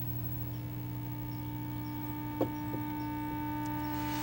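Steady hum from a 1960 Olympic vacuum-tube television's audio section, with several steady tones. It grows slowly louder, as a freshly swapped tube warms up, and there is a faint click about two and a half seconds in.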